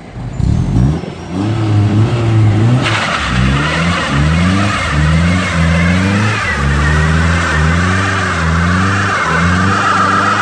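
Car engine revving over and over. From about three seconds in, tyres squeal and skid over it.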